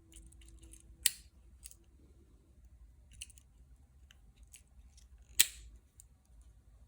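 Victorinox pocket knife tools being worked by hand: faint clicks and light metal scrapes, with two sharp snaps of a blade or tool springing shut, about a second in and again near five and a half seconds.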